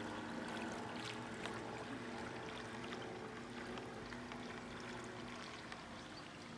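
Electric motor of an old radio-controlled model boat humming steadily over the rush and splash of water from its wake, slowly growing fainter.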